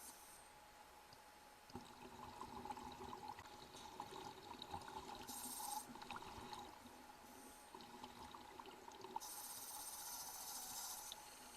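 Faint water trickling and pouring, a patter of small splashes with brief hissy rushes, one around the middle and a longer one near the end.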